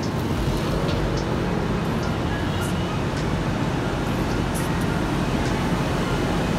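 Steady low rumble of city street traffic, with a few faint ticks.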